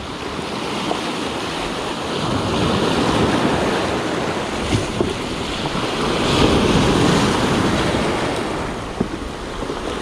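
Sea surf breaking and washing back over a cobble beach, swelling louder about three seconds in and again around six to seven seconds in as waves come in, with wind buffeting the microphone.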